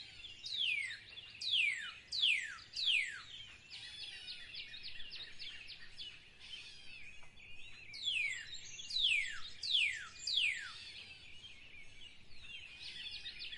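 Birdsong: a bird whistling two runs of four clear notes, each note sliding steeply down in pitch, with quicker, softer chirping between the runs.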